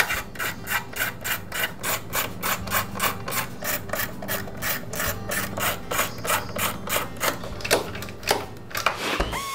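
Socket ratchet clicking steadily, about four to five clicks a second, as it turns the mounting bolts of a lawn mower's recoil starter housing.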